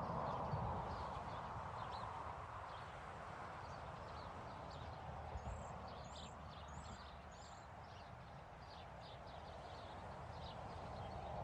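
Faint outdoor street ambience: a steady background hum with light, irregular taps, and four short high chirps around the middle.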